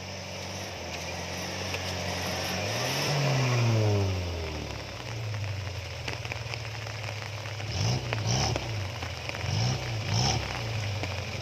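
Suzuki Jimny's carburetted Vitara engine revving under load: the pitch climbs to a peak about three to four seconds in and drops back, then rises and falls in several short throttle blips near the end.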